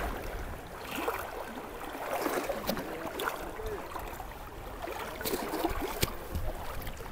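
River water splashing and swishing around the legs of a person wading knee-deep across the current, uneven, with scattered small clicks.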